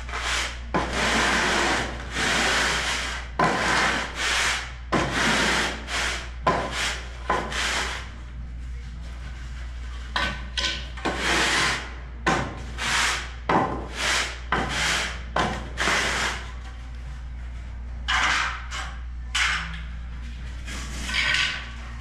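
Hand float scraping and smoothing damp sand-cement mortar on a shower floor screed: a series of rasping strokes, roughly one or two a second, with a couple of short pauses. A steady low hum runs underneath.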